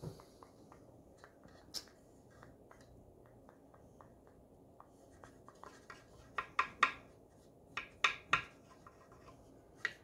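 Paintbrush work on a small wooden birdhouse and a paint plate: faint brushing and scratching with scattered light taps. The taps come in two small clusters past the middle.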